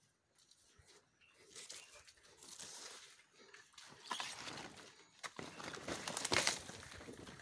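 Banana leaves rustling and scraping against the phone as it is pushed through the plants. It starts after about a second and a half and is loudest near the end.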